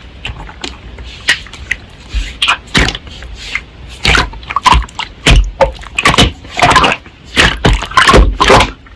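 Slime being squeezed and poked by hand: irregular wet squelches, clicks and small pops, coming faster and louder from about four seconds in.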